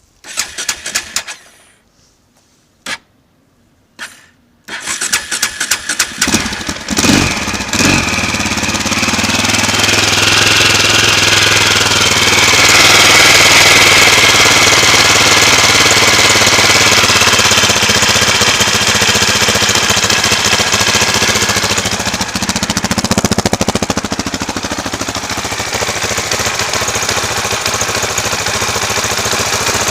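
KTM LC4 640 single-cylinder four-stroke engine with an Akrapovic slip-on exhaust being cranked in a few short tries, catching about five seconds in and running unevenly for a few seconds before settling into a steady fast idle. It is running part-warm, oil at about 40°C, with a little choke on.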